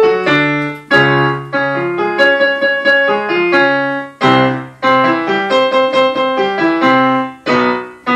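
Yamaha digital piano playing a short vocal-exercise melody over chords, the phrase struck afresh about a second in, again near four seconds and near seven and a half seconds.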